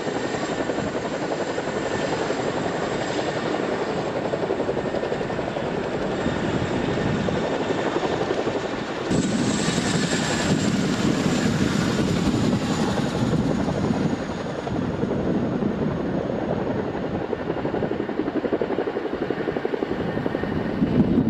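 CH-47 Chinook tandem-rotor helicopter running on the ground with its rotors turning: a steady, dense rotor beat over turbine noise. About nine seconds in, the sound shifts abruptly and gains more hiss and a high whine.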